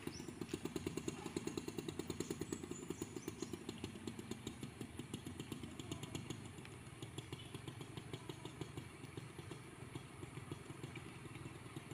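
A small motorcycle engine putters evenly as it rides slowly past and away, over the steady running of a heavy diesel truck engine.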